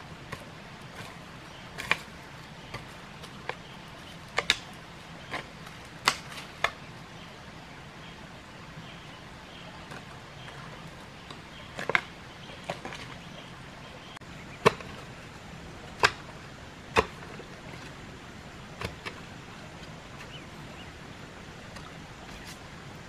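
A hoe chopping into loose earth: sharp, single strikes at irregular intervals, often a second or two apart, with a pause of several seconds in the middle.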